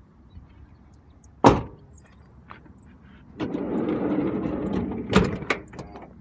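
A sharp knock about a second and a half in. Then the side sliding door of a Mitsubishi Delica L400 van rolls along its track for about two seconds and slams shut, with small latch clicks just after.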